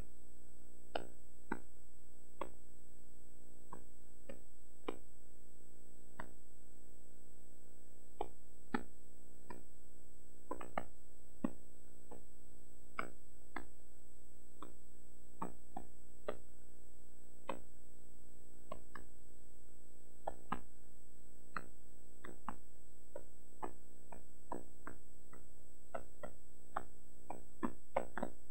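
Soft instrumental music: separate plucked-string notes, irregularly spaced about one or two a second and each fading away, over a steady sustained drone of held tones.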